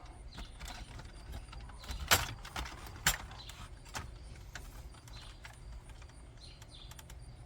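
Plastic clicks and knocks as an aftermarket head unit and its dash trim are pushed into place in the dashboard, two sharp knocks about two and three seconds in standing out over a low steady rumble.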